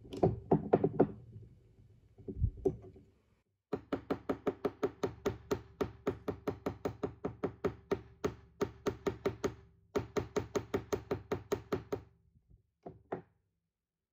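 Small jewelry hammer striking copper wire on a small metal anvil to flatten it. A few taps come first, then a long run of quick, even blows at about four a second, broken by one short pause. Each blow carries a short metallic ring.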